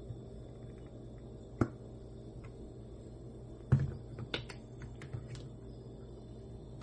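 Scattered knocks and clicks of kitchen things being handled, with a louder knock about a second and a half in and the loudest just under four seconds in, over a steady low hum.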